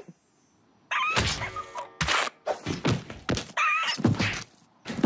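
Cartoon slapstick sound effects: after about a second of near silence, a rapid string of thunks and knocks, with short pitched cartoon cries in among the hits.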